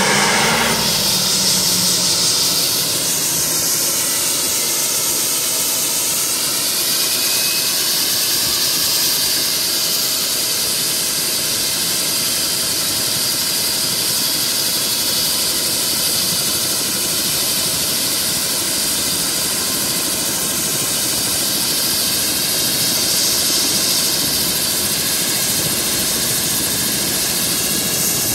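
Bell 429 helicopter's twin turboshaft engines running on the ground at idle with the main rotor turning: a steady, loud, high-pitched turbine whine with hiss.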